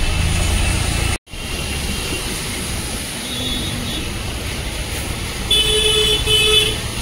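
Road traffic on a rain-wet street, with a vehicle horn honking twice near the end, the loudest sound, and two fainter short toots around the middle. The sound cuts out for an instant about a second in.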